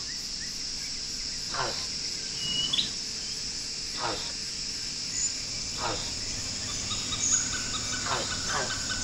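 Steady high-pitched drone of an insect chorus, with short animal calls that fall sharply in pitch, repeated every one to two seconds.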